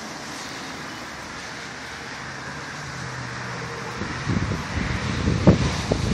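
Steady rush of wind outdoors with a faint low hum under it, then from about four seconds in gusts buffeting the microphone in loud, uneven rumbles.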